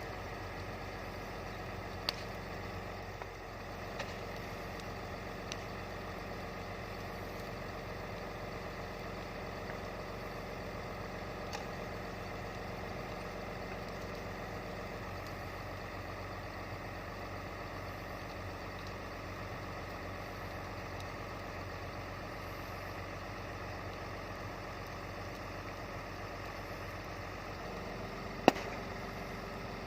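Komatsu PC200 excavator's diesel engine running at a steady idle. A few light clicks are heard, and one sharp click near the end is the loudest sound.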